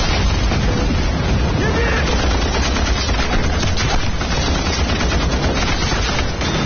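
Heavy, unbroken gunfire from many weapons at once: rapid machine-gun and rifle fire, the dense battle sound effects of a war drama.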